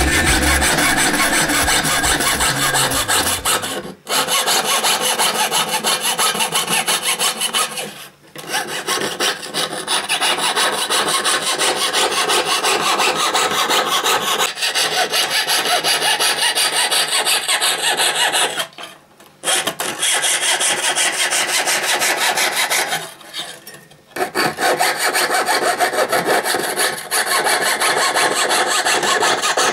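Fine fretsaw blade cutting thin boulle brass sheet by hand: a fast, even rasp of short saw strokes, broken by a few brief pauses.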